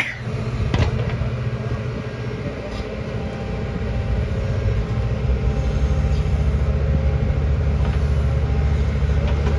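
Bull backhoe loader's diesel engine working under load as the rear bucket digs into soil and lifts it, with a short rising squeal and a knock near the start. The engine note grows louder and heavier about halfway through as the boom lifts the loaded bucket.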